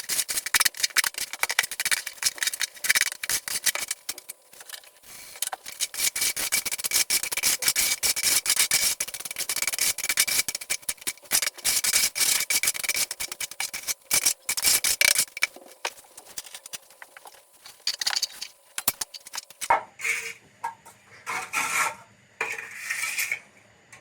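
Rapid, rasping scraping strokes of a hand tool working a rough surface, keeping up for about fifteen seconds, then breaking into shorter separate scrapes near the end.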